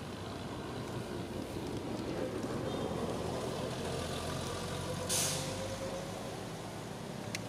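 Steady low engine rumble of a motor vehicle, its pitch slowly rising, with a short sharp hiss about five seconds in.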